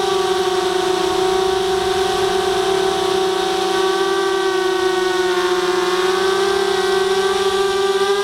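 Brushless motors and propellers of a ZMR250 racing quadcopter, picked up by its onboard camera, whining continuously. The pitch wavers slightly, dipping about a second in and rising again near the end.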